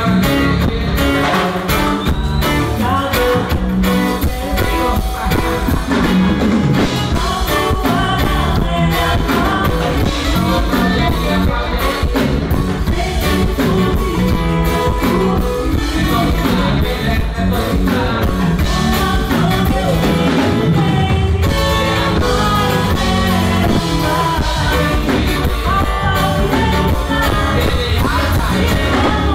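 Live band music with vocals sung into microphones over guitar accompaniment, playing without a break.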